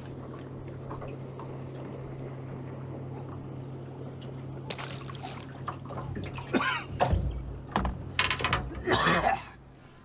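A hooked fish splashing and thrashing at the water's surface beside a small boat as it is brought in. There are several loud, irregular splashes in the second half, over a steady low hum.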